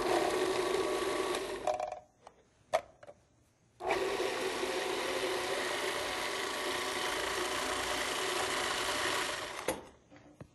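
Heavy-duty KitchenAid food processor motor running at a steady pitch as it purées steamed carrots. It runs for about two seconds, stops with a click or two, then runs again for about six seconds before cutting off.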